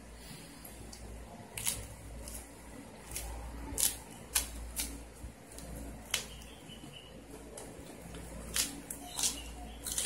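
Close-up eating sounds: chewing and lip smacks heard as scattered short, sharp clicks, over a low steady hum.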